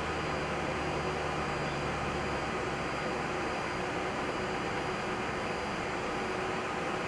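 Steady hiss and hum of an Airbus A330-300 flight deck during engine start on pushback: air and fan noise with faint steady tones. A low hum fades out about two and a half seconds in.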